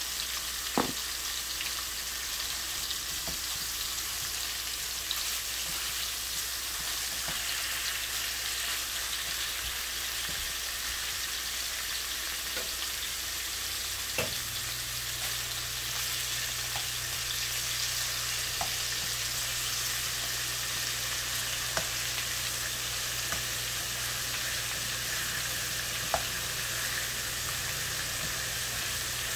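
Thin-sliced beef sizzling in a hot nonstick frying pan: a steady frying hiss broken by a few sharp pops.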